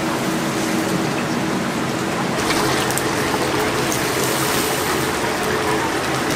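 Chicken deep-frying in a cauldron of hot oil: a steady, even sizzle.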